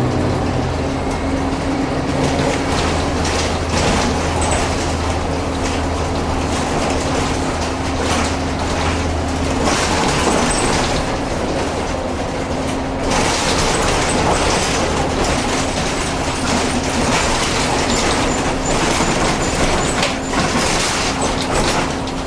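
Cabin noise inside a moving New York City transit bus: a steady low engine drone and a constant hum under road noise and rattles. The noise gets louder about halfway through.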